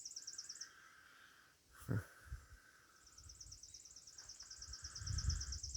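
Insects trilling outdoors: a rapid, evenly pulsed high-pitched song stops about half a second in and starts again about three seconds in, over a steadier, lower insect drone. There is one soft knock near two seconds in.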